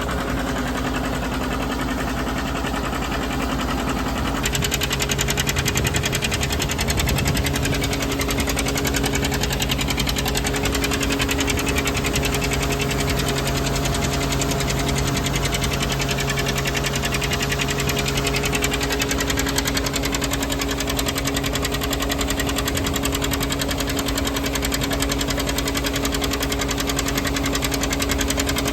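John Deere 720 two-cylinder diesel tractor running steadily while driving a Gehl feed grinder that is grinding chicken feed. About four seconds in the sound changes and gets slightly louder, then holds steady.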